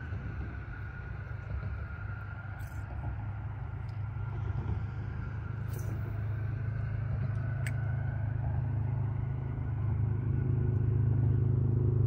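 Low, steady rumble of road traffic crossing a highway bridge, swelling towards the end, with a few faint clicks.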